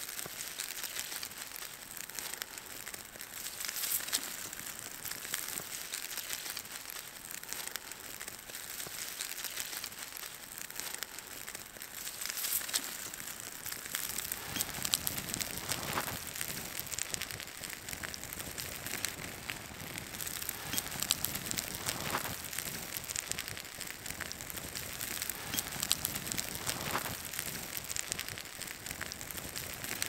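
Softwood campfire catching and crackling while dry twigs and brush are crunched and laid onto it. The crackle becomes fuller about halfway through as the fire takes hold.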